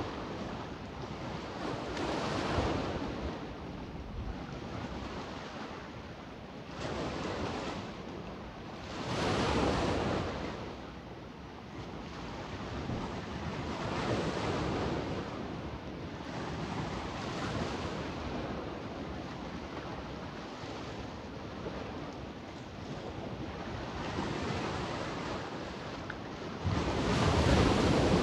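Sea waves washing onto the shore, swelling and falling back every few seconds, the largest near the end, with wind blowing on the microphone.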